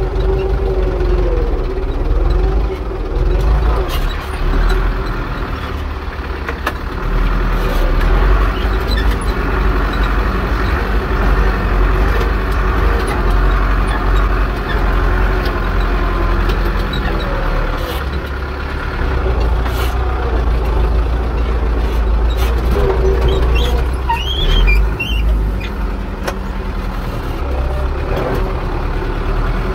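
Zetor 6245 tractor's four-cylinder diesel engine running steadily under load while pulling a plough, with a few short clicks over it.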